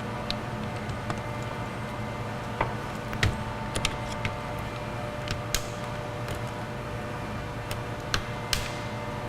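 Scattered light clicks and taps, about a dozen at irregular intervals, from the plastic door switch panel and its wiring connectors being handled and unclipped. They sit over a steady background hum.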